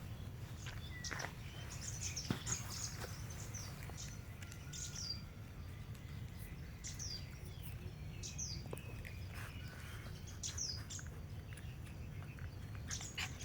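Small birds chirping: short, high calls that fall in pitch, repeated every second or two. There are a few faint knocks in the first couple of seconds.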